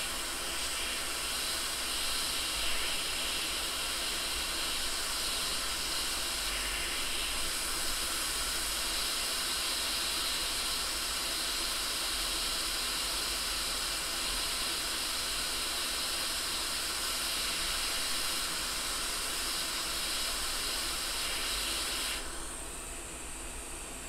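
Hot-air rework station blowing a steady hiss of hot air over an iPhone XR logic board, heating the shorted U3300 power-controller chip to desolder it. The airflow stops near the end.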